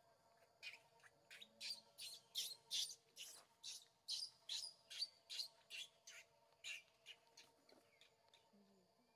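A bird calling in a fast run of short, high chirps, about three a second, loudest in the middle and thinning out near the end.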